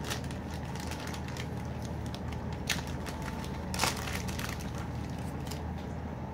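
Packaging being handled, crinkling and clicking in many short crackles, with two sharper clicks a little before the middle.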